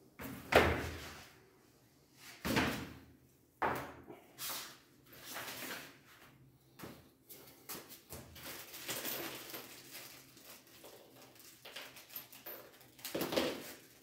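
White door-frame pieces being handled and set down on cardboard over the floor: several knocks and thuds, the loudest about half a second in and another cluster near the end, with rustling and scraping between.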